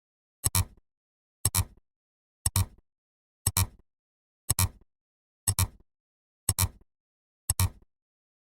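A short, sharp double click repeated once a second, eight times, each pair of clicks evenly spaced like a ticking counter.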